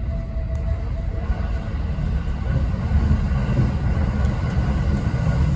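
Running noise of an E217 series electric train at speed, heard inside the upper deck of a Green car: a steady low rumble of wheels on the track that grows a little louder about halfway through.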